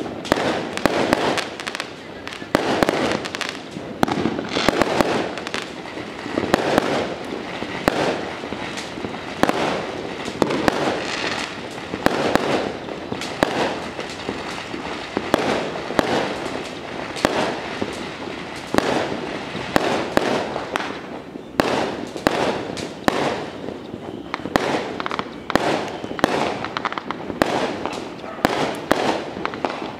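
Firecrackers going off in a long, continuous run of rapid sharp bangs, surging louder every couple of seconds.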